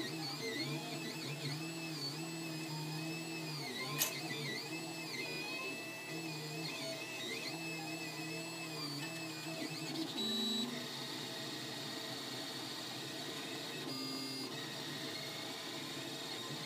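Solidoodle 3D printer running a print, its stepper motors whining in several tones that shift and jump in pitch as the head moves. There is one sharp click about four seconds in.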